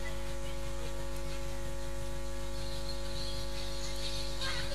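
Steady electrical mains hum, a constant drone made of several fixed tones that does not change, with faint voices coming in near the end.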